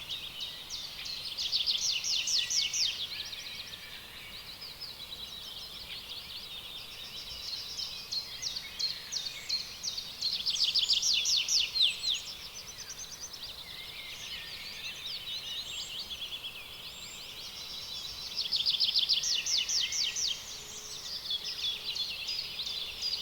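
Songbirds singing: a continuous chorus of high chirps, with louder bouts of rapid trills about two seconds in, around eleven seconds, and again near nineteen seconds.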